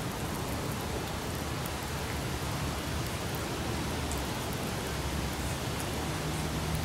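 Steady, even outdoor hiss of background noise, with a faint low hum underneath.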